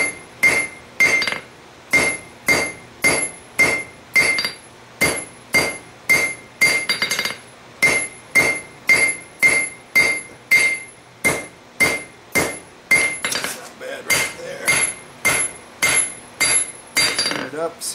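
Hand hammer blows on a red-hot railroad spike on the anvil, about two a second, each with a bright metallic ring from the anvil: the spike is being drawn out to length with a taper.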